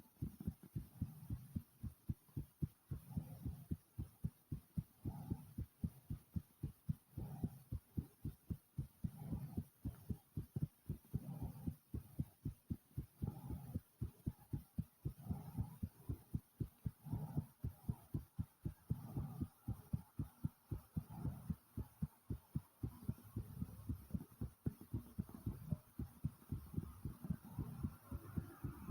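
A person's own heartbeat, fast and pounding hard after exertion, as a rapid even run of low thumps. A softer breath comes about every two seconds.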